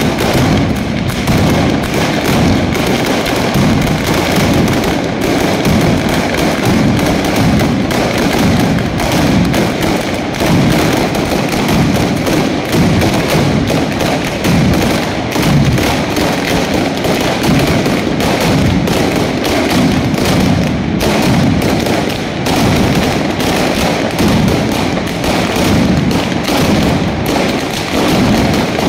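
Firecrackers going off on the ground: many rapid bangs packed so close together that they form one continuous, unbroken crackle.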